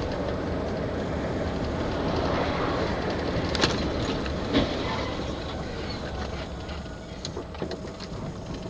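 Steady engine and tyre noise inside a vehicle's cab on a wet road, with two sharp knocks about three and a half and four and a half seconds in, then a few lighter ticks near the end.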